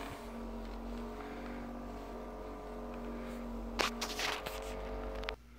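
Vibrating foam roller's motor running with a steady hum while it is rolled under a foot, with a few light knocks about four seconds in. The hum cuts off suddenly just before the end.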